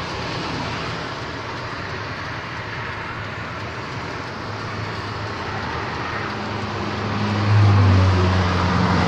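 Vehicle engine running, a low steady drone that comes in about halfway and grows louder near the end, over a steady background rumble of traffic and road noise.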